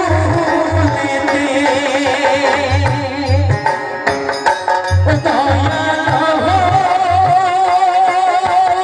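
Live folk music: a singer's voice with a strong vibrato over a hand drum beating a rhythm. The drum drops out briefly near the middle, and the voice holds one long wavering note through the second half.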